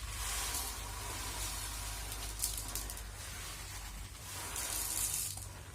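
Rustling and handling of grocery packaging, with one sharp click about two and a half seconds in, over a steady low hum.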